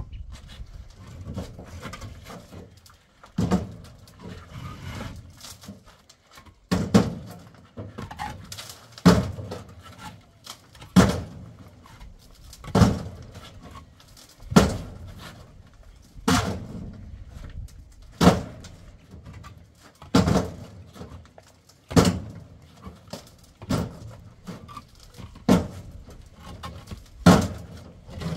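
Heavy blows of a hand tool striking a hard surface, one about every two seconds in a slow, steady rhythm, with quieter scraping and shuffling between them.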